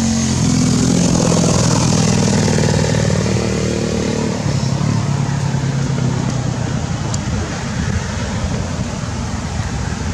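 A motor vehicle engine, likely a motorcycle, drones steadily and fades out after about four seconds, leaving a steady rushing noise.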